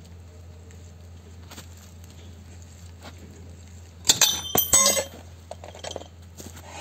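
The square drive of a socket wrench snapping under a pipe cheater bar on a seized wheel nut: a burst of sharp metallic clinks and ringing about four seconds in, lasting about a second, as the steel gives way and the tool and pipe clatter.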